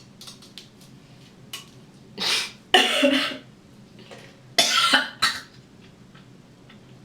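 A drunk, nauseous woman coughing hard over a toilet, four harsh coughs between about two and five seconds in, the longest and loudest with a voiced, gagging edge, as she tries to bring up vomit.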